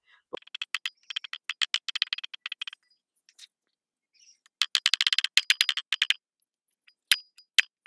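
Rapid light tapping of a mallet on a socket used as a driver, seating the inner wheel-bearing grease seal into a truck's front hub. It comes in two quick runs of taps, about ten a second, with a pause between, then a few single taps near the end.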